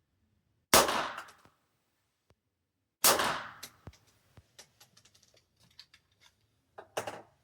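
Two shots from a Vostok .22 LR pistol about two seconds apart, each sharp with a short ringing tail. Light clicks and clacks of handling follow, and a fainter sharp clack near the end.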